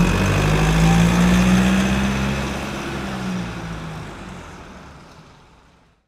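Motor vehicle engine running with a steady low hum over broad noise, gradually fading out over the last few seconds.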